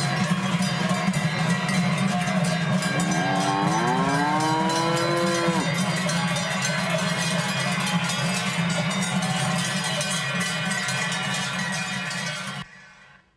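Cowbells clanging continuously, with one long cow moo rising in pitch from about three seconds in. The sound drops away abruptly near the end.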